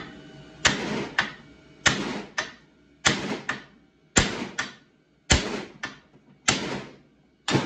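Hammer blows on a rusty 1995 Mustang front spindle and rotor assembly: seven sharp metal strikes about a second apart. Most are followed by a lighter knock, and each rings briefly.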